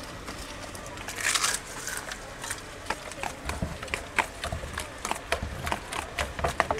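A hand mixing a wet potato-and-chutney chaat filling in a steel bowl: irregular soft clicks that come thicker toward the end, with a brief hiss about a second in.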